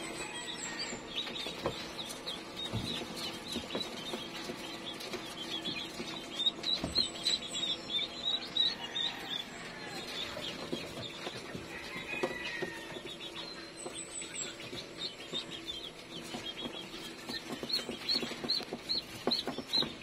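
Birds and poultry calling: many short, high chirps, clucking, and a brief high falling call about every seven seconds, over a faint steady hum.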